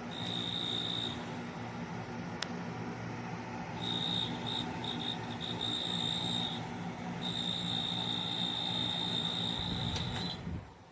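Portable dehumidifier running: a steady mechanical hum with a high-pitched whine that comes and goes in stretches. The sound cuts off suddenly near the end.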